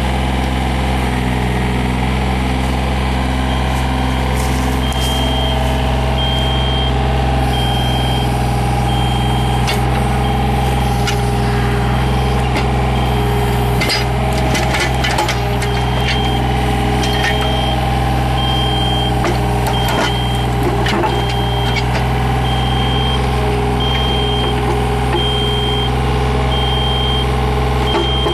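Yanmar VIO35-3 mini excavator's three-cylinder diesel engine running steadily, with a high on-off alarm beeping for most of the stretch, stopping for a few seconds in the middle. Scattered sharp knocks and clanks sound during that pause.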